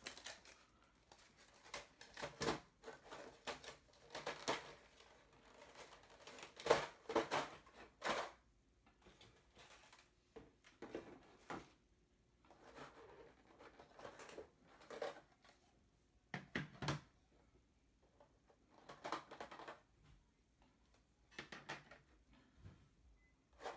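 Plastic toy packaging and small plastic figure parts being handled: irregular clicks, taps and rustles, in clusters every second or two.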